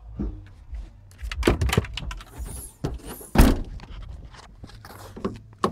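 Several dull thumps and knocks, the loudest about three and a half seconds in, over a low rumble.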